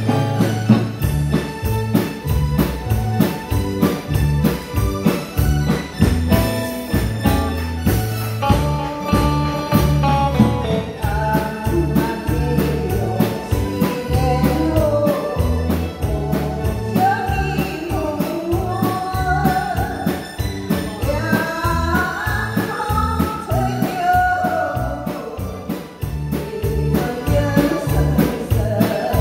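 Live band of drum kit, electric bass and keyboard playing a song with a steady beat, and a woman's amplified singing voice coming in about a third of the way through.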